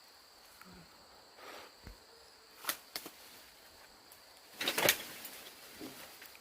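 Leaves and vines rustling in a few short bursts, the loudest near the end, as akebia fruit is searched for and picked from the vine.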